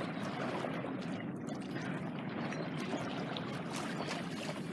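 Water rushing and trickling along the hull of a small sailing boat under way: a steady, even wash.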